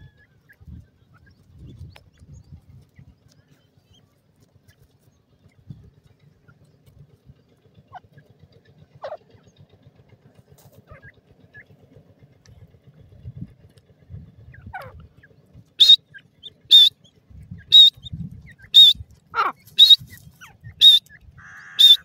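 Grey francolin chick calling: a run of eight sharp, high peeps about a second apart over the last six seconds, after a few softer scattered chirps.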